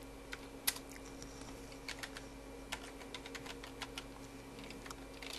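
Keys being pressed on a computer keyboard: an irregular run of light clicks, some in quick little bursts, over a faint steady low hum.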